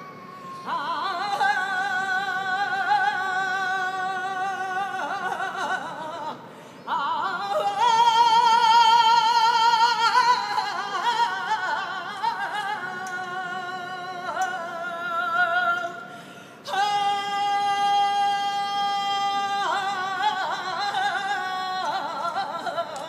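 A woman singing a saeta, unaccompanied: long held notes with a strong waver and ornamented flamenco runs. It comes in three phrases with short breaths between them, loudest in the second.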